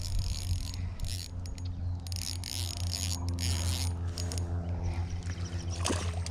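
Handling noise while a small bluegill is reeled in and landed on an ultralight spinning rig, with several short, hissy, rattling bursts about a second in and again in the middle, over a steady low hum.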